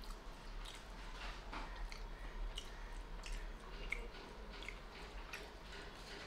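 Faint chewing of a mouthful of spicy chicken noodles, with soft, irregular wet clicks and smacks of the mouth.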